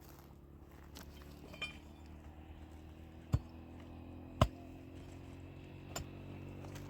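Four sharp clinks, the loudest two about three and four and a half seconds in, over a steady low hum from something running.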